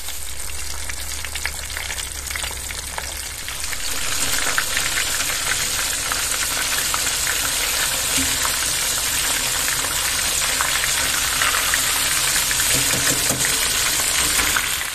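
Flour-dusted brown sole (magarei) deep-frying in hot oil for karaage: a steady sizzle full of fine crackles, getting louder about four seconds in.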